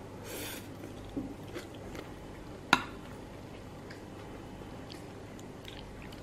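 Quiet eating at a table: soft chewing and a few small clicks of a spoon and fork against ceramic plates, with one sharper clink about halfway through.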